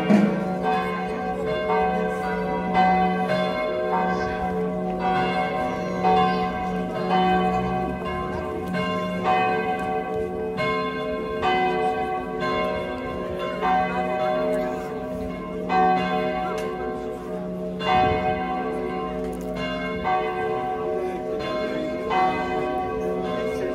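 Church bells ringing in a steady peal, struck about once a second, each stroke ringing on over a low hum that never stops. The ringing marks a religious procession setting out from the church.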